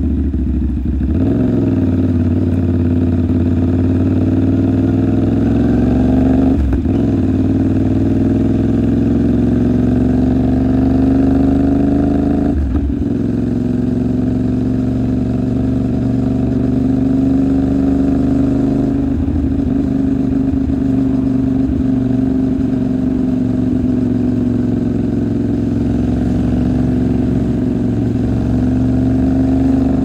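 CFMOTO 450SR's parallel-twin engine pulling through the gears: its note climbs steadily in each gear and drops sharply at upshifts about 1, 6½, 13 and 19 seconds in, then holds a steady pitch at cruise.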